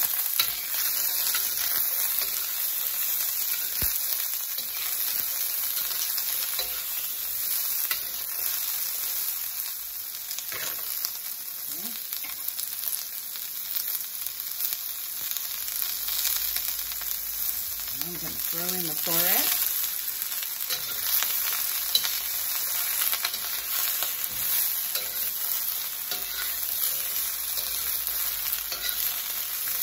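Broccoli stems sizzling in a very hot wok with a little peanut oil: a steady frying hiss, with clicks and scrapes of a metal utensil stirring them against the pan.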